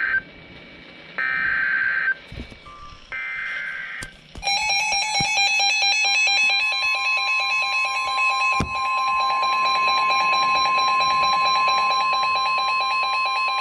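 Emergency Alert System SAME header: short screeching digital data bursts about a second apart. Then a loud, rapidly pulsing electronic alarm starts, joined about two seconds later by a steady high alert tone, the alarm that introduces a severe thunderstorm warning on NOAA Weather Radio.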